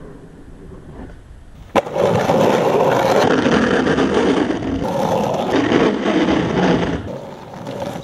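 Skateboard sound: a softer scrape of the board sliding along a metal handrail, a sharp clack about two seconds in, then loud rolling of urethane wheels over rough concrete that fades near the end.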